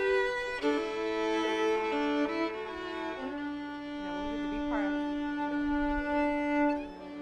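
Two fiddles playing a slow tune together in long bowed notes, changing pitch every second or so and then settling on one long held note from about three seconds in.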